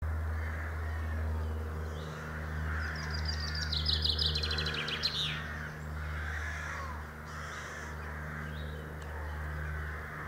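Low steady drone of an approaching Irish Rail 201 class diesel-electric locomotive's engine. Songbirds chirp over it, and a harsh, rapid rattling bird call comes in for about two seconds, a few seconds in.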